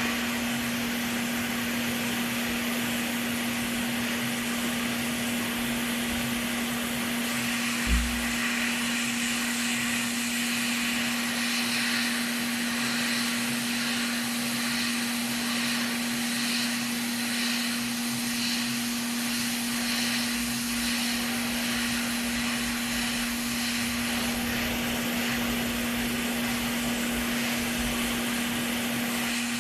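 Steady blowing whir of a hot air rework station working on the Xbox Series X board to desolder the HDMI port, with a constant low hum under it. A single dull thump about eight seconds in.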